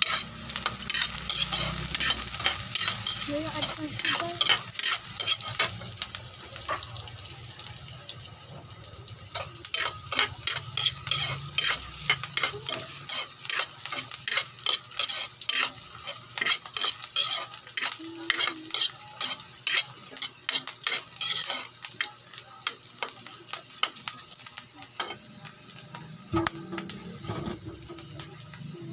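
Chopped onion and garlic sizzling in hot oil in a wok, with a metal spatula scraping and knocking against the pan in quick repeated strokes as it stirs; the strokes thin out over the last several seconds while the sizzling goes on.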